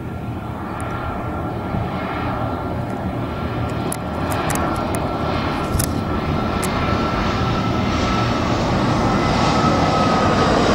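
Airliner approaching to land, its engine noise growing steadily louder, with a high whine that slowly falls in pitch.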